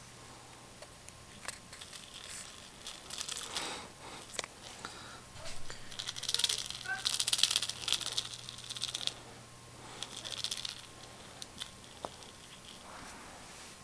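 Kitten wrestling a toy on carpet: scratchy rustling and scuffling of claws and teeth on the toy and the carpet, with small clicks. It comes in bouts, the loudest and densest from about six to nine seconds in, with a shorter one soon after.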